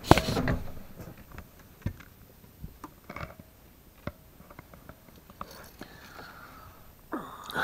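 Handling and movement noises inside a van: a loud clatter at the start, then scattered light knocks and clicks. A rushing noise comes in near the end.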